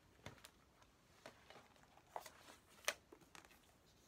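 Near silence with a few faint, short rustles and taps of paper album contents being handled.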